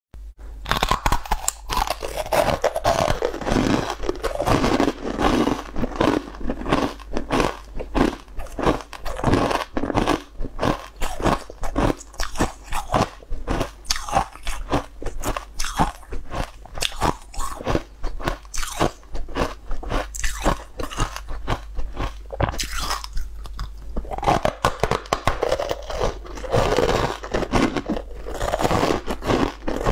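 Close, crisp crunching and chewing of frozen ice balls coated in green powder, bitten and chewed in quick, continuous crunches.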